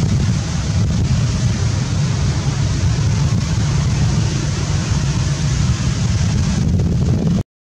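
Wind buffeting the microphone: a steady, loud low rumble with a hiss above it, cutting out abruptly near the end.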